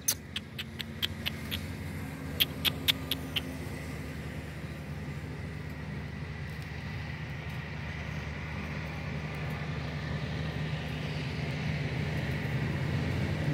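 A steady low engine hum that grows slowly louder toward the end. About ten sharp clicks come in the first three and a half seconds.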